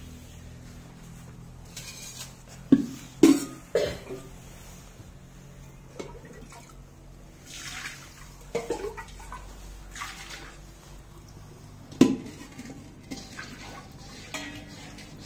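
Steel pots and a small steel bowl knocking and clanking, with soft wet squelching of thick curd (dahi) being scooped and wiped out by hand. Three sharp clanks come close together about three seconds in, and another loud one near twelve seconds.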